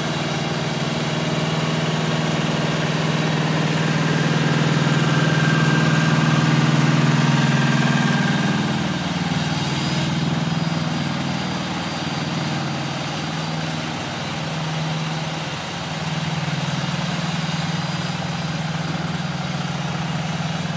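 Heavy diesel engines of a dump truck and a Leeboy asphalt paver running steadily as the truck delivers hot-mix asphalt to the paver. The engine sound swells louder in the first several seconds, then its pitch shifts slightly about nine seconds in and it settles.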